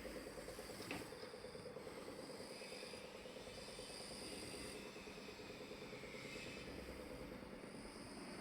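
Frogs and insects calling steadily: a rapid pulsing trill of frogs with higher, thin insect chirring above it. A single faint click about a second in.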